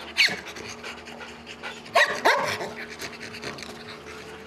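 Police detection dogs panting, with two loud high cries that fall sharply in pitch, one just after the start and one about two seconds in.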